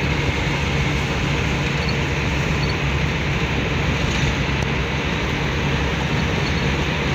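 Steady engine drone and road noise inside the cab of a delivery van cruising at speed, with a constant low hum.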